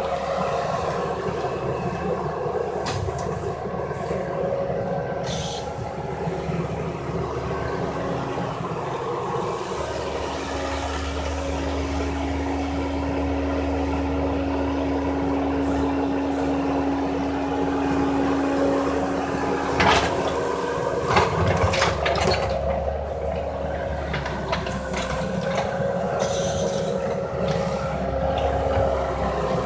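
Bobcat compact track loader's diesel engine running steadily under load with a constant pitched whine, its low rumble stronger for several seconds mid-way. A few sharp knocks come about two-thirds of the way through.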